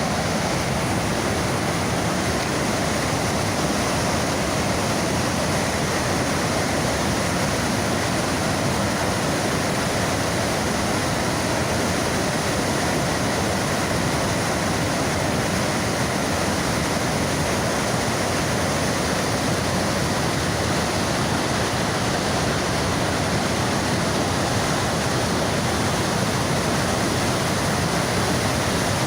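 Rushing water of the Niagara River's rapids just above the falls: a loud, steady roar of fast white water.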